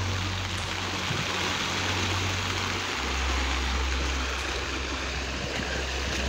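A swollen, muddy river in flood after heavy rain, rushing and churning in a steady rush of water.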